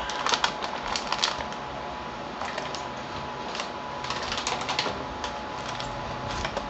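Crinkling of a motherboard's plastic anti-static bag and rustling of its cardboard box as they are handled. The sound comes as irregular clusters of crackly clicks, one in the first second and a half and another around four to five seconds in.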